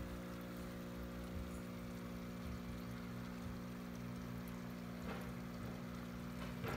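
Aquarium pump humming steadily, with water moving through the tank. Two brief soft knocks come about five seconds in and near the end.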